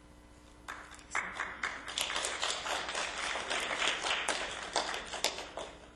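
A small audience applauding, a handful of people clapping, starting just under a second in and dying away near the end.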